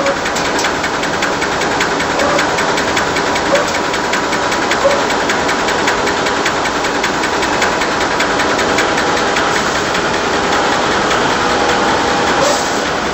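Automatic facial tissue production line running: a steady mechanical clatter with rapid, even ticking and a faint steady whine. A short rush of hiss near the end.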